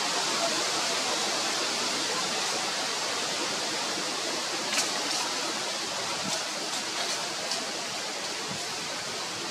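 Steady, even hiss of outdoor background noise, with a few faint short ticks about halfway through.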